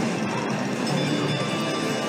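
Music playing at an even level.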